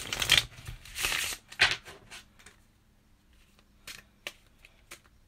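Tarot cards being riffle shuffled: a quick run of cards flicking together right at the start, then two shorter rustles within the first two seconds, followed by scattered light taps and clicks as the deck is handled.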